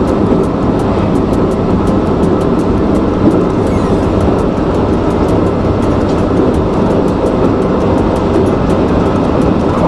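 Steady running rumble of a Nara Line electric train in motion, heard from on board. A faint, even ticking sits high above it, about four a second.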